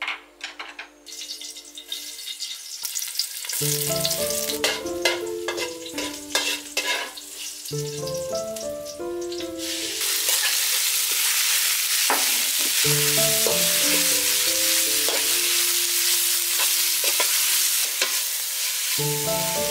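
Sliced beef frying in a hot wok with a steady sizzle, which grows much louder about ten seconds in, and the clatter and scrape of a metal spatula stirring the meat. Light background music plays underneath.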